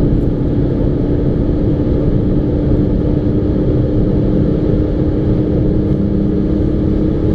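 Audi TDI turbodiesel heard from inside the cabin, accelerating hard in sixth gear at around 4,000 rpm above 200 km/h. The engine drone holds nearly steady over heavy road and wind noise, rising only slowly.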